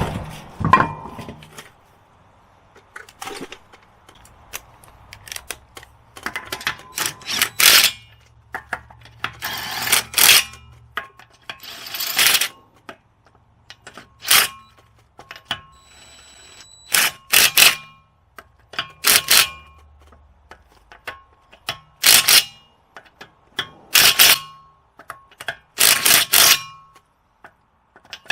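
Repeated metal-on-metal clanks from tools working on a car's front wheel and brake assembly, each ringing briefly after the strike. They come every second or two, often in quick pairs.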